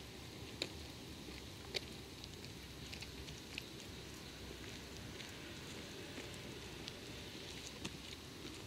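Faint outdoor background noise: a low, even hum with scattered small ticks.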